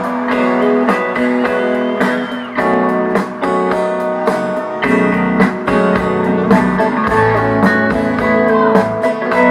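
Guitar music played back through a pair of DIY Overnight Sensation bookshelf speakers driven by an SMSL Q5 Pro amplifier, picked up in the room by the camera's microphone.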